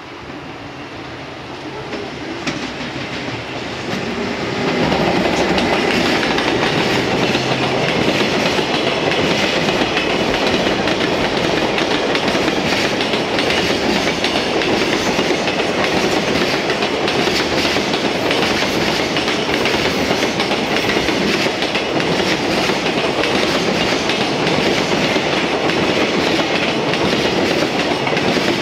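A JR Freight EF210 electric locomotive approaches, growing louder over the first few seconds, and then a long freight train of container wagons rolls steadily past, its wheels clicking over the rail joints.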